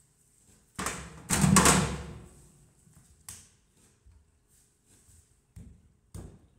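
Knife and brush work on a wooden chopping block while fish are cut: a loud, rough scraping clatter about a second in, then a few short knocks of the blade on the block near the end.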